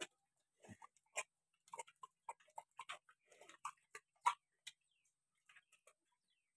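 A pig eating from a trough of wet feed: irregular wet smacking and slurping clicks of its mouth, dense through the first few seconds and thinning out near the end.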